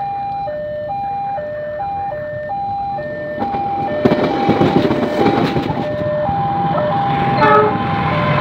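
Railway level-crossing warning alarm sounding two alternating tones, about one change every half second. From about four seconds in, a KRL commuter electric train rolls past with wheel clatter and clicks over the rail joints. A short, louder tone comes near the end.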